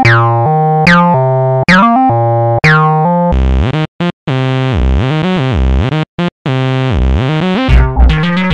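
Electronic dance music. It opens with synth chord stabs about once a second, then a held synth with pitches sliding up and down, cut off to silence twice for a moment. Heavy bass thumps and drums come in near the end.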